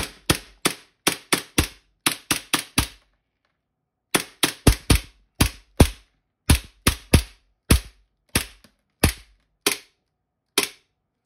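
Gas-blowback airsoft pistol (2011-style Hi-Capa 5.4) firing about two dozen sharp shots in quick semi-automatic succession, the slide cycling on each shot. There is a pause of about a second around three seconds in, and the shots come further apart toward the end.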